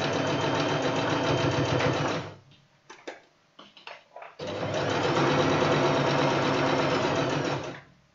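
Singer Talent domestic sewing machine stitching a straight seam at a steady speed. It stops after about two seconds, there are a few light clicks, and then it runs again for about three and a half seconds before stopping near the end.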